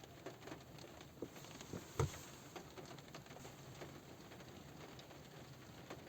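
Light rain pattering on a car roof, heard from inside the car: scattered, irregular drops with one louder drop about two seconds in.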